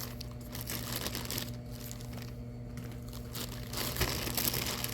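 Plastic bag crinkling and rustling as bottles are handled and pulled out of it, louder about four seconds in, over a steady low hum.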